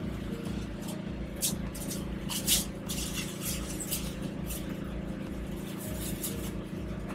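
Steady low mechanical hum of kitchen equipment, with a few short hissing rustles and light clinks from food being handled at the counter.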